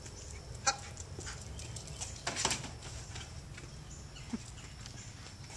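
Footsteps on a concrete driveway from a man walking with a dog at heel: a few scattered clicks and a louder scuff about two and a half seconds in.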